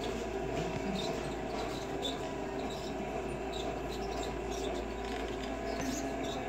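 Shopping cart rolling along a store aisle: a steady background hum with scattered faint high clicks from the cart.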